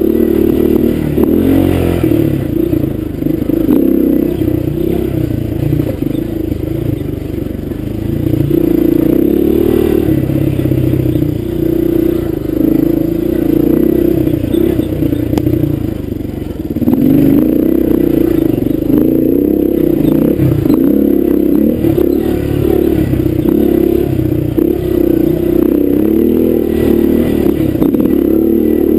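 Honda dirt bike's engine running under throttle on a rough trail. It eases off briefly about a quarter of the way in and again just past halfway, then pulls again.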